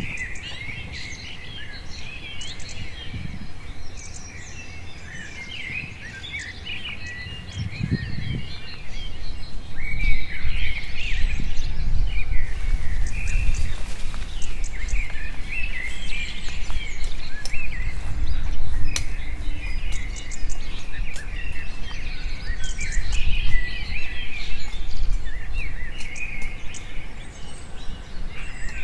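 Many wild birds chirping and calling in tropical scrub, over a low rumbling noise with dull thuds that grows louder about a third of the way in, along with scattered sharp clicks.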